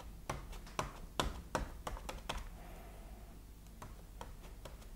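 A cloth French-polishing rubber dabbed and pressed onto paper on a bench to squeeze out excess polish: a run of soft taps, about two a second, through the first half, then a few fainter ticks.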